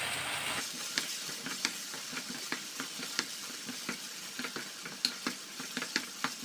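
A wooden spatula stirs tomato sauce into minced beef, onions and bell peppers in a stone-coated frying pan, with irregular scrapes and taps against the pan over a steady sizzle of the sauce frying.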